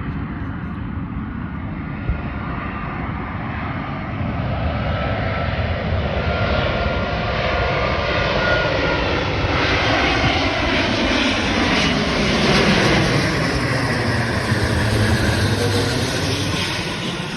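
Large jet airliner on landing approach: its engines grow louder to a peak as it passes close by, the pitch bending, then begin to fade near the end.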